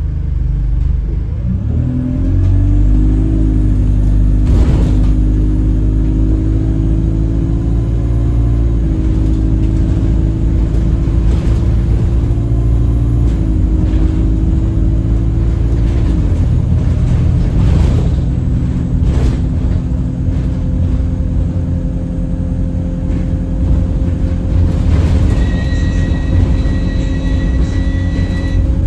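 Alexander Dennis Enviro 200 bus running, with a low rumble and a strange horn-like drone from the drivetrain whose pitch shifts as the bus changes speed. A high thin whistle joins about 25 seconds in, and there are a few sharp knocks and rattles. The uploader thinks the noise comes from the gearbox.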